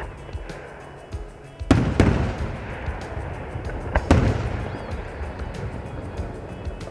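Aerial fireworks shells bursting: a sharp bang at the start, two in quick succession about two seconds in, and another about four seconds in, each trailing off in a low rumbling echo. Music plays steadily underneath.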